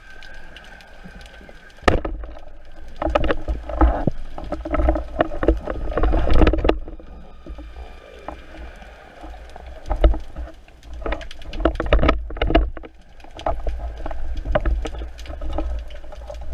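Underwater handling noise picked up by a camera mounted on a speargun: irregular knocks, clicks and rushes of water as the gun and its shooting line are handled and the diver swims. A faint steady whine runs under it for the first two seconds, then stops.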